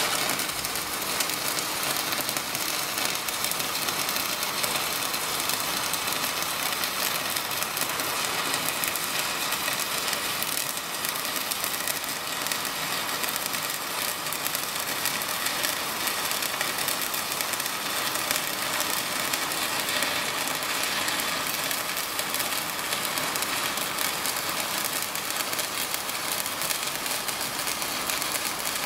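Stick (MMA) welding arc crackling steadily as a 3.2 mm 60-series electrode burns along 3 mm steel plate on DC from a Parweld XTM 221Di inverter. The crackle stays dense and even without breaks, the sound of a stable running arc.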